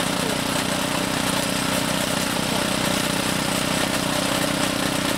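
Small petrol engine of a portable soil drilling rig running at a steady speed.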